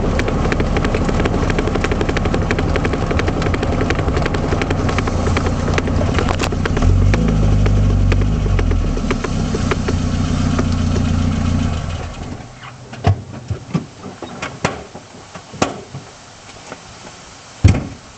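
1978 Triumph Spitfire's 1500 four-cylinder engine running steadily with a fast fine ticking, a bit louder for a few seconds in the middle, then cutting off about twelve seconds in. A few separate knocks and clunks follow, the loudest one near the end.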